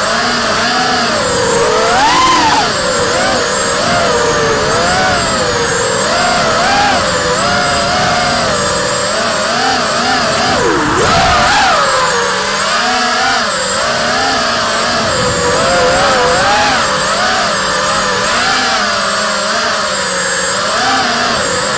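QAV210 racing quadcopter's Emax RS2205 2300 kV brushless motors with DAL 5045 tri-blade props whining in flight, the pitch rising and falling constantly with the throttle. About eleven seconds in the pitch drops sharply for a moment, then climbs again.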